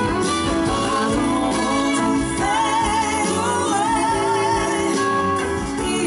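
Live blues-rock band playing: a male lead vocal over guitar, electric bass and drums.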